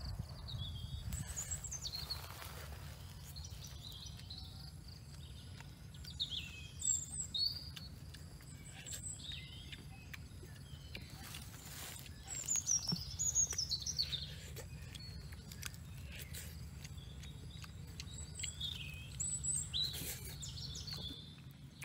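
Birds chirping on and off with short, high, sliding calls, over a steady low background hum.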